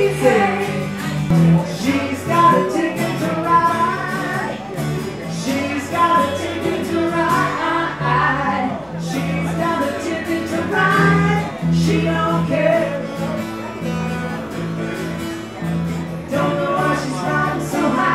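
Live acoustic country-rock band of two acoustic guitars and an electric bass playing steadily, with some singing.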